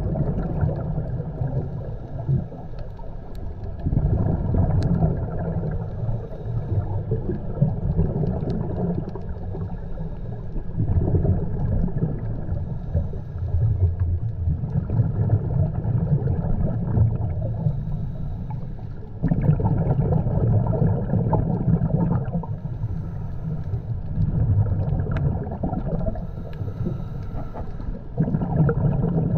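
Muffled underwater rumble of water and bubbles around the camera, swelling in surges every few seconds.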